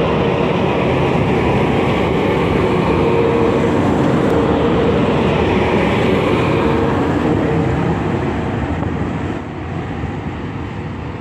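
DB Class 111 electric locomotive running past close by with its train of n-Wagen coaches: a loud, steady rumble of wheels on rail with a steady hum from the locomotive. From about eight seconds the sound eases off as the coaches roll by.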